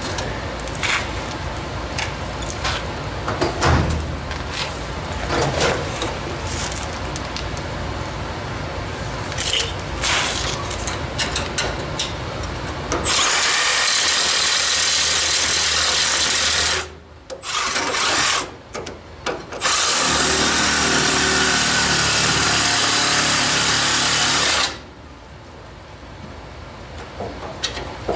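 Reciprocating saw cutting the rusted sheet steel of a pickup's cab corner. It runs steadily for about three and a half seconds, then in a few short bursts, then steadily for about five seconds more, stopping near the end. For the first half before the saw starts there are irregular clicks and clatter.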